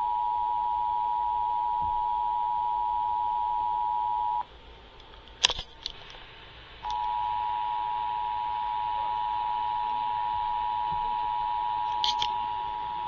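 Emergency Alert System attention signal, the steady two-tone alert (853 and 960 Hz sounded together). It cuts out about four seconds in, a sharp click follows, and the dual tone comes back about seven seconds in.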